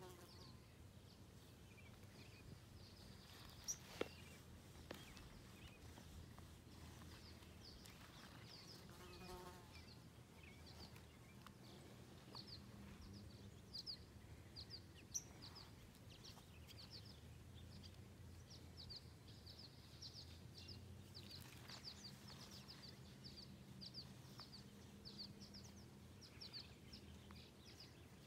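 Near silence: faint outdoor ambience with many small, high chirps repeating through it, and a brief pitched call about nine seconds in.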